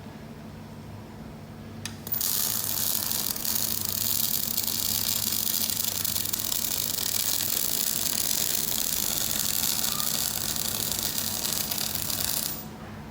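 MIG welding arc from a Daihen 350 fuzzy welder: a steady crackling hiss that strikes with a click about two seconds in and runs for about ten seconds before cutting off near the end, over the low hum of the machine.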